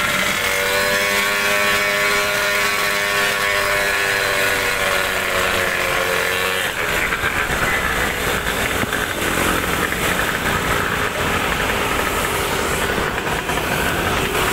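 Small 63cc gas scooter engine running at a steady pitch while riding, over a hiss of wind and wet-road noise. About six and a half seconds in, the steady engine tone gives way to a rougher, noisier rumble.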